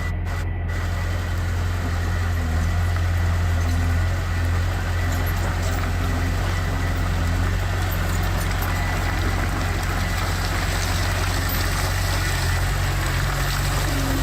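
Heavy construction machine's diesel engine running steadily at low revs, a low even engine note that holds unchanged.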